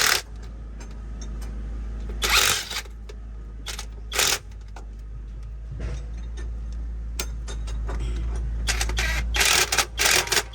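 Intermittent sharp clanks and rattles of tools and metal parts during truck repair work, over a steady low hum; the knocks come near the start, twice in the first half, and in a quick cluster near the end.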